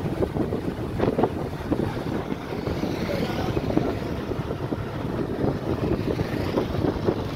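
Engine and road noise from a moving vehicle, with wind buffeting the microphone.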